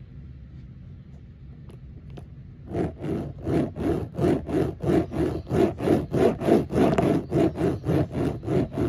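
A Hot Wheels three-wheeled monster-truck toy's knobby wheels rolling and rubbing on a hard surface as it is pushed rapidly back and forth by hand. The strokes begin about two and a half seconds in and come in an even rhythm of about three a second.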